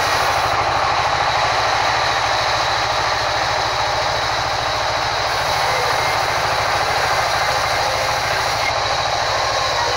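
Sawmill band saw ripping lengthwise through a wide wooden slab: a loud, steady machine noise with a thin high whine over a fast, even low hum.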